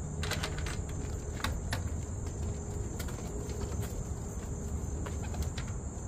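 Steady high-pitched insect chorus, with scattered light clicks and knocks as a pigeon is caught inside a wooden loft.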